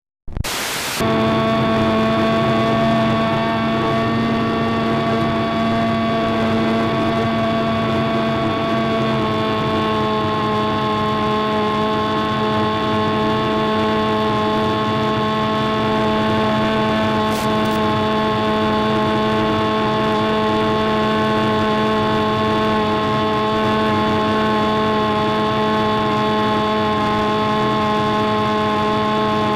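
Big Stick 60 model airplane's engine running steadily in flight, picked up by the onboard FPV microphone; the sound cuts in abruptly just after the start, and its pitch drops slightly about nine seconds in.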